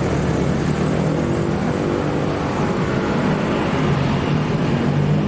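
Steady low mechanical hum that holds one pitch without letting up.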